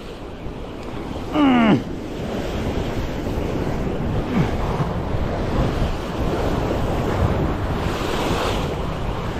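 Sea waves washing against a rocky shore, with wind buffeting the microphone. About a second and a half in, a short falling voice sound cuts through.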